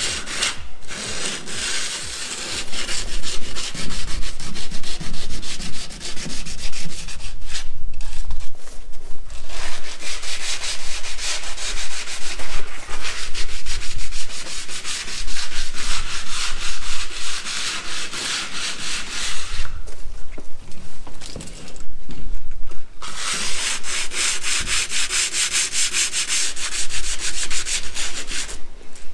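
Sandpaper rubbed by hand along the edges of a camper box's door opening in fast back-and-forth strokes, breaking off briefly twice. The edges are being scuffed so the sealant has more to bite into.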